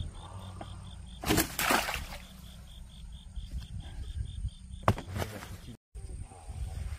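Water splashing as a hooked fish is brought into a landing net, in two short bursts about a second in and again near five seconds, over a cricket chirping steadily about four times a second.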